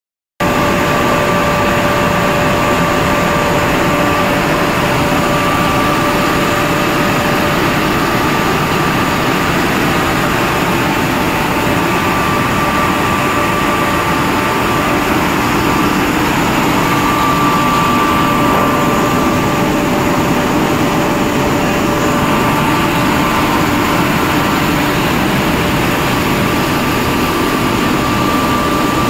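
Snack pellet extrusion line running: a loud, unbroken machinery drone from its motors, blowers and vibrating conveyors, with a thin high whine that fades in and out.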